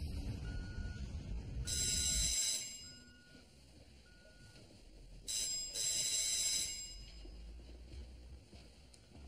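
A telephone rings twice, each ring a bright, high trill, the second starting about three and a half seconds after the first. A low rumble runs under the first ring and stops just after it.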